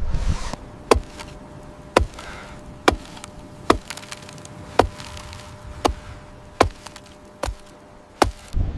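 Sharp chopping strikes of a hand tool, evenly paced at about one a second, nine in all, as when cutting into hard snow to dig a trench shelter.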